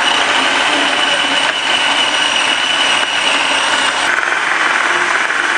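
Electric food processor running at full speed, grinding raw chicken with onion, peppers and parsley into a kebab paste. A steady motor whine over chopping noise shifts lower about four seconds in.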